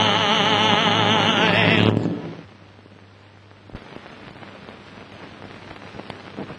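Music with singing voices holds a final chord, then stops about two seconds in. After it comes the hiss of an old film soundtrack with scattered clicks and pops, a few of them sharper near the end.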